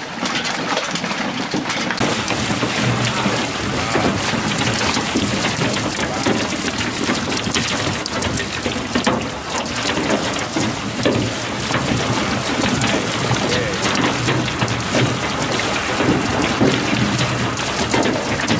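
Water and live blue catfish gushing out of a fish-stocking truck's tank into the lake, a steady splashing rush that gets fuller and brighter about two seconds in.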